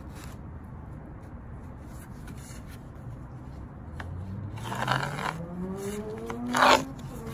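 Lumber and gloved hands scraping and scuffing on a sheet of cement board as a straight edge is laid out for scoring, with two louder scuffs about five and six and a half seconds in. Under it, from about four seconds in, a low hum rises steadily in pitch.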